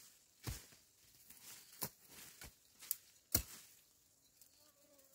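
Hand hoes striking dry hillside soil, about five separate chopping thuds at uneven intervals, the loudest a little past the middle, as holes are dug for sowing beans.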